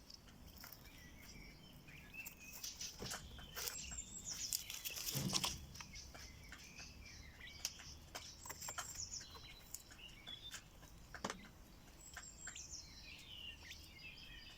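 Domestic quails chirping and trilling softly throughout, with scattered sharp clicks and taps and a louder rustling flurry about five seconds in.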